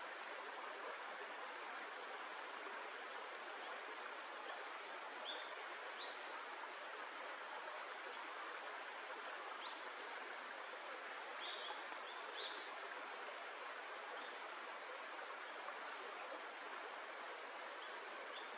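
Steady rush of a flowing stream, with a few brief, faint high chirps scattered through.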